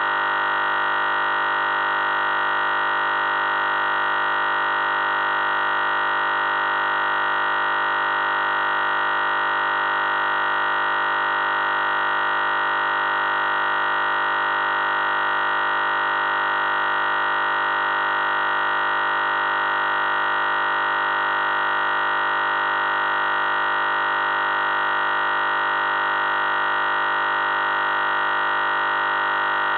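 A steady electronic tone: one buzzing chord of many overtones, strongest in the upper-middle range, held at the same pitch and loudness with no change at all.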